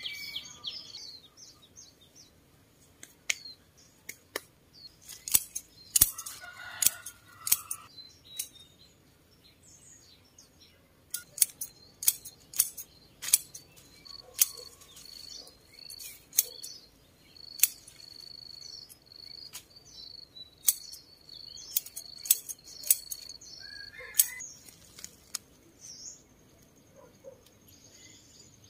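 Hand pruning shears snipping tomato stems: a run of sharp, irregular clicks, some coming in quick pairs. Birds chirp behind.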